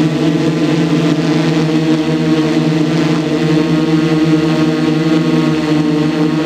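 Small engine running steadily at one constant high speed, a loud even hum with no change in pitch.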